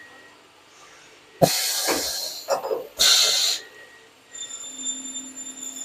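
CNC machining centre spindle tool release: a sharp clunk and a loud hiss of compressed air about a second and a half in, then a second short air blast about three seconds in, as the tool is swapped for an edge finder. From about four seconds a steady high whine from the machine sets in.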